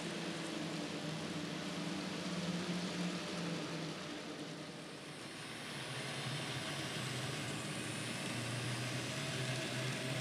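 N scale model train running past: a steady whir of the small motor and the wheels rolling on the track. The level dips briefly about halfway, and the hum then sits at a lower pitch.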